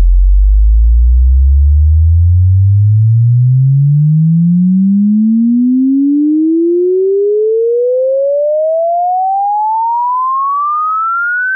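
Pure sine-wave test tone sweeping steadily upward in pitch, from a deep hum to a high whistle. It is played equally in both channels, so it should sit dead centre between the ears: any drift to one side shows a mismatch between the left and right headphone drivers.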